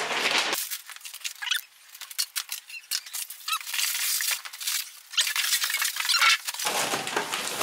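Plastic wrap crinkling and rustling, with squeaks from foam packing, as a new microwave is unwrapped by hand. The sound is an uneven run of quick crackles rather than a steady noise.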